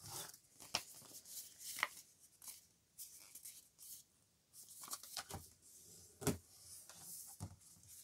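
Large scissors snipping through paper near the start, then paper being handled and rustled, with a few light clicks and taps on the table.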